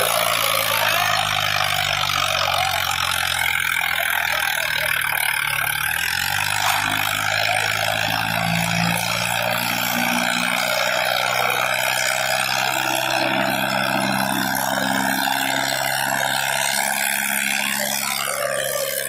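Farmtrac 60 tractor's diesel engine running steadily under heavy load as it pulls two disc harrows through the soil, its exhaust smoking black. The engine note dips briefly about six seconds in and then recovers.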